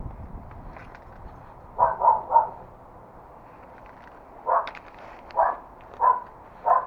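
Dog barking: three quick barks about two seconds in, then four more spaced about a second apart.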